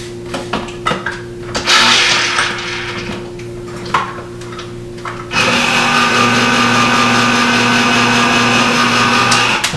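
Clicks and handling noise as a can is set into a countertop electric can opener, then the opener's motor runs steadily for about four seconds while cutting the lid, and stops abruptly near the end, leaving the can partly opened.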